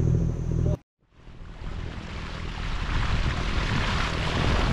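Water rushing and splashing along the hull of a moving sailboat, with wind on the microphone; it comes in after a short dropout about a second in and builds up. Before the dropout, a steady low boat-engine hum.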